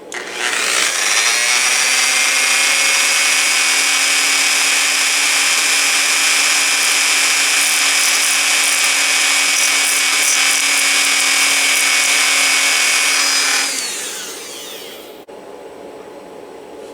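Dremel rotary tool spinning up, running at a steady high whine for about thirteen seconds while grinding down the trimmed end of a tiny 000-120 screw, then winding down with a falling pitch.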